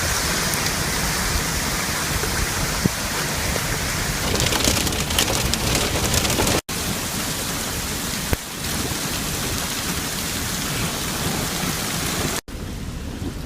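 Heavy thunderstorm rain and strong wind, a steady loud rush. For a couple of seconds about a third of the way in, a denser, sharper patter rises in it. The sound cuts out briefly twice.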